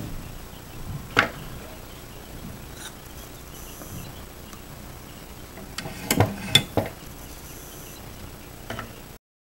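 Small clicks and clatters of plastic shotshell hulls and a metal reloading press being handled while making shotgun cartridges: a sharp click about a second in, then a cluster of knocks and clacks around six seconds in. The sound cuts off suddenly near the end.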